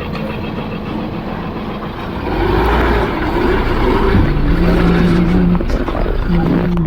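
Mahindra 4x4's engine running off-road, getting louder about two seconds in as it works harder, its pitch rising and falling.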